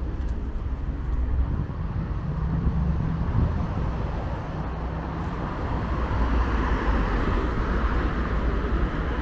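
Road traffic on a city avenue: a steady low rumble of engines, with tyre noise growing louder from about six seconds in as vehicles pass.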